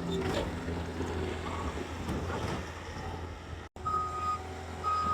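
Skid steer engine running steadily. About three-quarters of the way in, its reversing alarm beeps twice.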